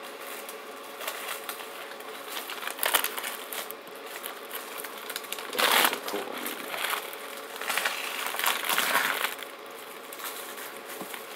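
Paper-and-cellophane wrapping of a firecracker brick crinkling and tearing as it is pulled off by hand, in irregular bursts, the loudest about six seconds in.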